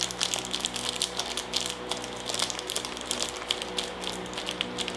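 Wrapper of a Cadbury Twirl chocolate bar crinkling as it is peeled open by hand: a quick run of sharp crackles, over a faint steady hum.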